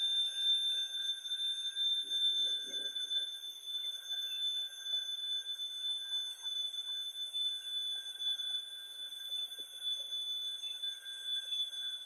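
Two cordless stick vacuum cleaners, a Dyson V6 and a Proscenic P8 Max, running together as they are pushed over carpet: a steady, high-pitched electric motor whine.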